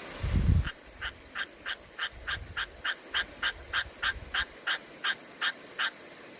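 A short, low thump, then an animal calling in a quick, even series of about seventeen short, high calls, about three a second, which stop near the end.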